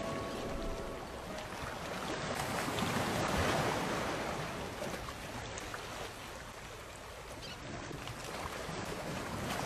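Soft wash of sea waves, a noise that swells about three seconds in, eases off and builds again near the end.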